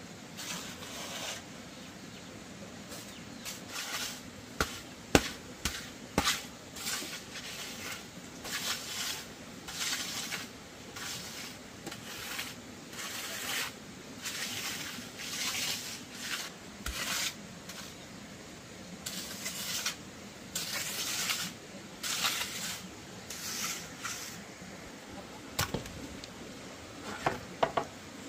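Repeated rasping, scraping strokes, roughly one a second and irregular, broken by a few sharp knocks, the loudest about five seconds in.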